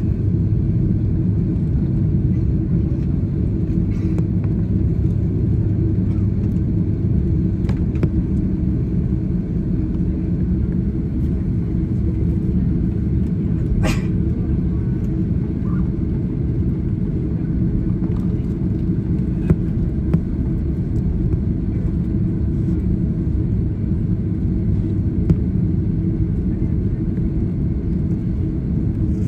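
Steady low rumble of an airliner heard from inside the cabin as it taxis after landing, with a few faint clicks and knocks, the sharpest about 14 seconds in.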